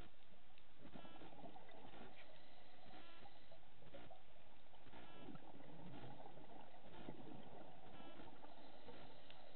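Scuba diver breathing underwater through a regulator. Each inhale gives a short buzzing note, every two to three seconds, and bubbly rumbles of exhaled air come between them over a steady crackling background.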